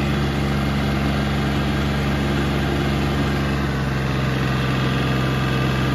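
Compact tractor's engine running steadily at a constant speed as the tractor drives through snow, heard close from the operator's seat.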